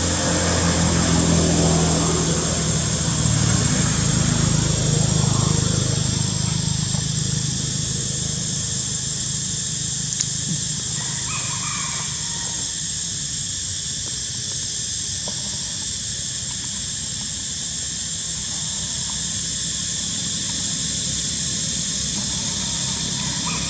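Outdoor ambience: a low engine drone, loudest in the first several seconds and then fading, under a steady high-pitched whine, with a brief faint high call about eleven seconds in.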